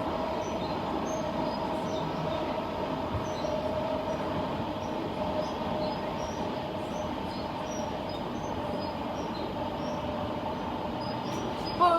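Queensland Rail IMU 120-class electric train running, heard from inside the carriage: a steady rumble of wheels on track with a steady, even whine over it.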